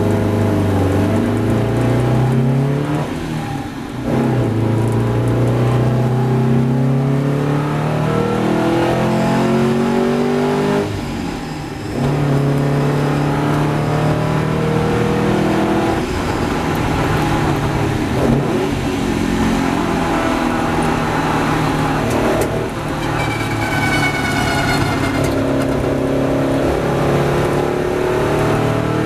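Porsche 550 Spyder's four-cam flat-four racing engine heard on board at speed, revving up in long rising pulls and falling away sharply three times as the driver lifts off.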